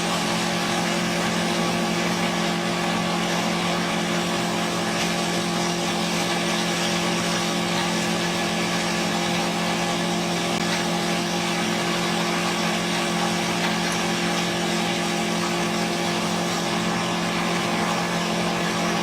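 Engine running steadily at one constant speed, a continuous hum with no change in pitch and no chipping or impacts.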